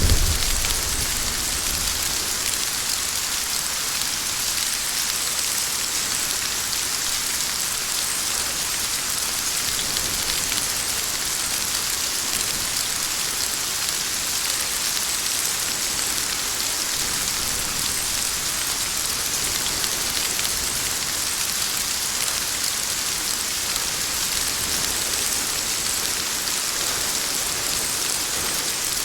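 Steady heavy rain, a dense even hiss strongest in the high range. The tail of a thunder rumble fades out in the first second.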